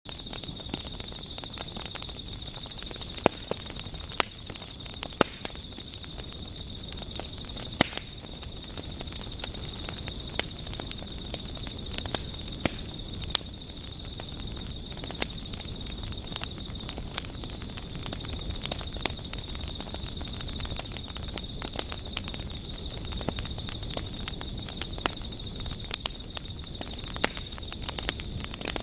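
Wood campfire crackling, with frequent sharp pops, over a steady high-pitched chorus of night insects.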